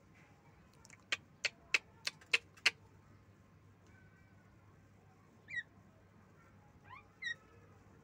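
Javan mynas: a quick run of six sharp clicks, about three a second, then two short squeaky chirps a few seconds apart.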